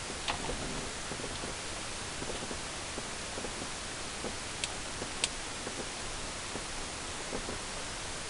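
Steady hiss with faint rustling and a few small clicks, two sharper ticks about halfway through, from hands handling car stereo wires and electrical tape.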